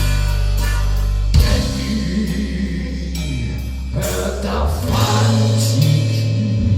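Rock band playing live, with electric guitar chords, bass, drums and singing.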